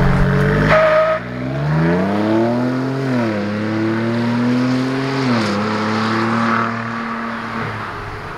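Ford Bronco with a Corsa cat-back exhaust accelerating. The exhaust note climbs in pitch, drops at an upshift about three seconds in, holds steady, then drops again at another shift a little past five seconds.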